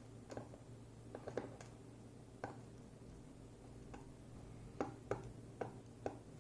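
Light, irregular clicks of small metal lock parts and tools being handled while an ASSA 600 pin-tumbler cylinder is taken apart. A few clicks come close together about a second in, and the rest at uneven gaps.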